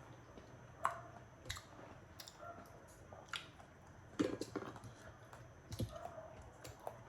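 Raw oysters being eaten close to the microphone: wet chewing and mouth sounds with scattered sharp clicks, a quick cluster of them about four seconds in.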